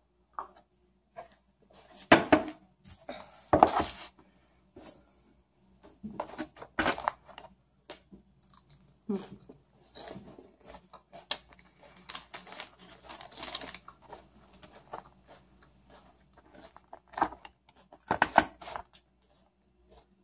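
Paper takeout packaging and plastic wrap rustling and crinkling as they are handled at a table, with scattered knocks and clicks; the loudest rustles come about two and four seconds in and again near the end.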